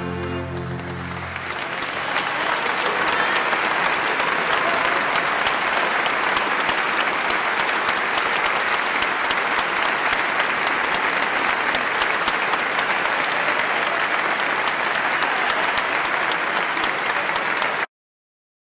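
A held orchestral chord dies away in the first second or so, and an audience's applause swells up over it. The applause holds steady and then cuts off abruptly near the end.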